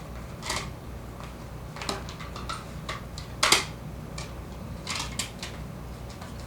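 Hand-handling noise of unpacking small potted plants: scattered light clicks, taps and rustles, with one sharper, louder crackle or knock about three and a half seconds in.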